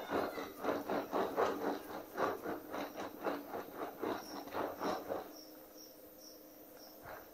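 Quick scraping strokes of a plastic bench scraper spreading and smoothing cream frosting on a cake, about four or five strokes a second, stopping about five seconds in. Faint high-pitched chirps repeat a few times near the end.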